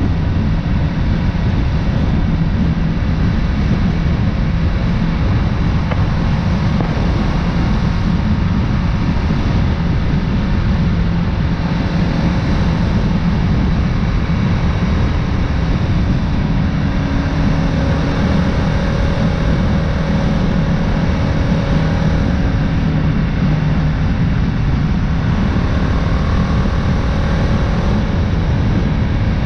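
Motorcycle riding at road speed: the engine running steadily under heavy wind rush on the microphone.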